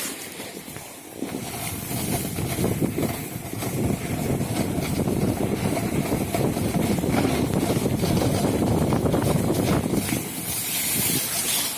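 Snowboard sliding over snow, a steady scraping rush that builds after a couple of seconds, with a brighter hiss of sprayed snow near the end.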